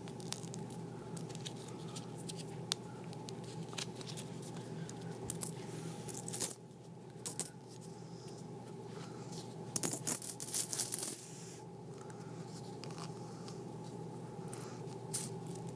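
Wheat pennies (Lincoln cents) clinking against one another as they are shaken out of an opened paper coin roll into a pile on carpet. Scattered light clicks, with the loudest, quickest run of clinks about ten seconds in.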